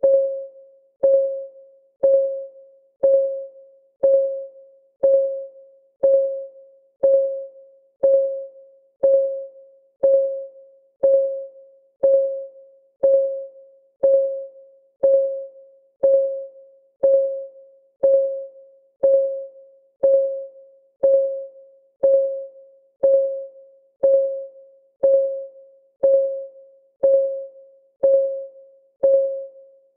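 Clock ticking sound, one tick per second, steady and even. Each tick is a short click with a ringing tone that fades within about half a second.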